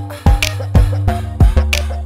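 Background music with a steady drum beat over a deep bass line.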